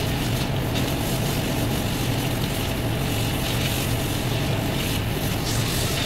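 Large diesel engine running steadily with an even low hum.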